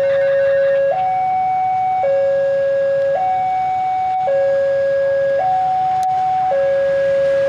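Electronic railway level-crossing warning alarm sounding a steady two-tone hi-lo signal, switching pitch about once a second, as a train approaches the crossing.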